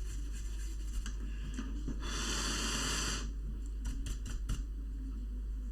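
A steady hiss lasting about a second, heard while the laptop's cooling-fan blades are being cleaned, then a few light clicks and taps of parts being handled.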